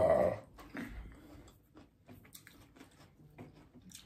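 Close-miked chewing with small wet mouth clicks, from eating chicken salad in crisp cucumber boats. A short loud burst right at the start stands out above the rest.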